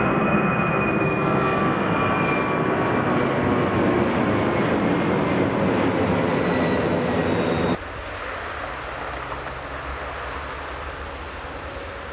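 Airbus A300-600ST Beluga's jet engines passing overhead, a loud rush of engine noise with a whine that falls slightly in pitch. About eight seconds in the sound cuts abruptly to the quieter, steadier engine noise of a Beluga approaching to land.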